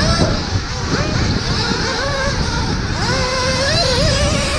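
Several nitro RC buggy engines racing, their high-pitched whines rising and falling as they rev up and back off.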